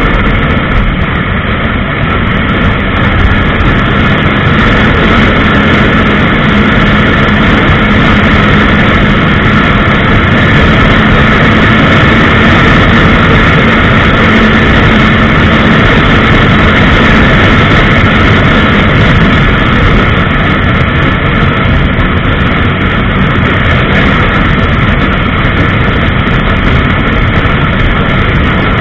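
Honda CBR1000RR's inline-four engine running steadily at highway cruising speed, about 134 km/h, mixed with loud wind rush over the bike.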